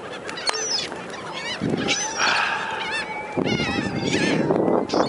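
A flock of seagulls calling at once, many overlapping rising-and-falling cries repeated in quick series, over a steady rushing background.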